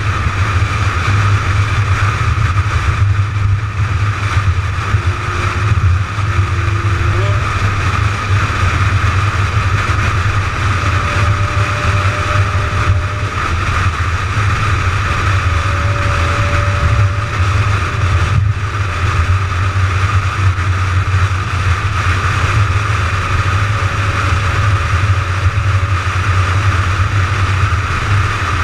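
McLaren 570GT cruising at steady highway speed: a constant low drone of engine and tyre-on-road noise with wind, holding even throughout.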